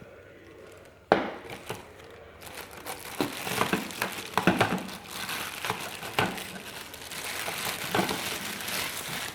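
Irregular crinkling and crunching with many sharp clicks, starting suddenly about a second in.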